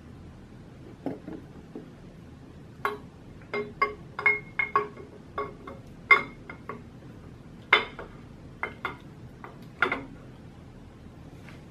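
Solid roller camshaft being slid by hand into a Ford 351 Cleveland block: its lobes and journals clink against the cam bearings and block in a string of sharp metallic clinks that ring briefly, thickest over the middle of the stretch.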